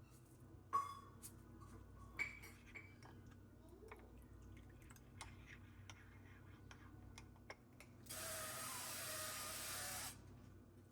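A series of small clicks and knocks, the loudest about a second in with a brief ring, then water running from a tap for about two seconds near the end.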